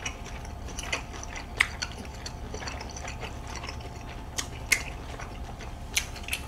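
People eating at a table: soft chewing and wet mouth sounds, with a few sharp clicks of utensils against dishes, over a low steady background hum.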